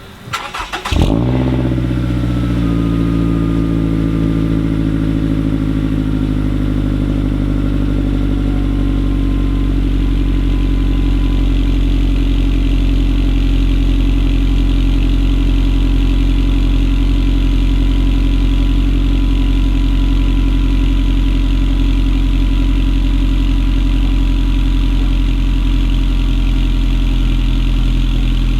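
2016 Scion tC's 2.5-litre four-cylinder starting through a Borla axle-back exhaust about a second in. It flares briefly, then settles into a steady idle whose pitch eases down over the next several seconds.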